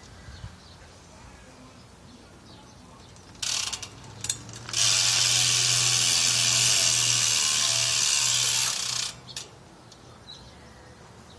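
BMX rear hub (We the People Supreme cassette hub) ratcheting as the back wheel spins freely: a short burst about three and a half seconds in, then a loud continuous clicking buzz for about four seconds that tails off. The owner finds the hub pretty loud.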